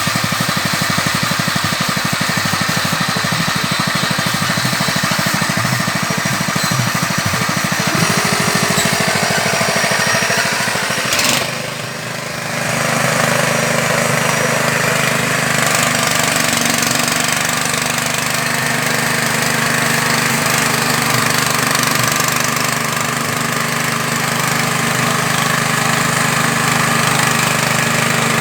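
Fish-feed pellet extruder machine running loudly and steadily with its engine, a fast low pulsing at first. About eleven seconds in there is a click and a brief drop, after which it runs on with a steadier low hum.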